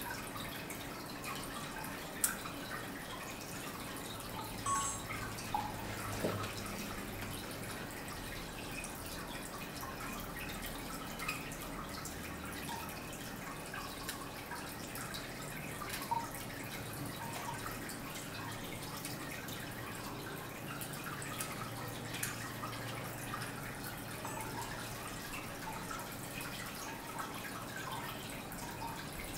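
Faint steady trickle of water with scattered drips, and a few small clicks and taps scattered through it.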